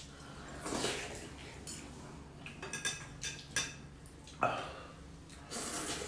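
Spoons and chopsticks clinking and tapping against ceramic soup bowls during a meal of noodle soup, with a few short slurps as noodles are eaten.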